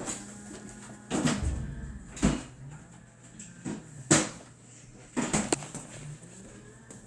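A handful of sharp knocks and bumps, spread unevenly over the seconds, above a steady low hum.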